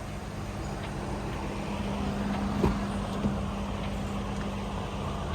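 A vehicle running steadily, with a constant low hum and two short knocks about two and a half and three seconds in.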